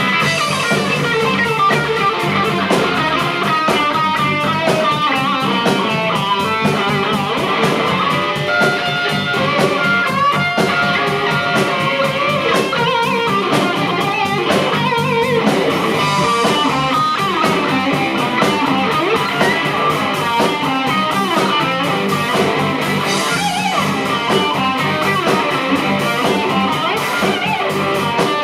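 Live rock band playing, led by an overdriven electric guitar, a Gibson Les Paul through a Tone King Comet amp, playing lead lines with some long held notes.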